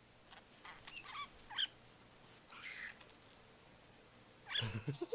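Budgerigar chirping in a run of short, quick twittering calls, with a louder, lower-pitched burst of sound near the end.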